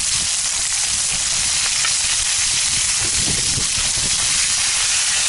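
Meat frying in a hot sadj, a steel wok-like pan over a campfire, with a steady sizzle.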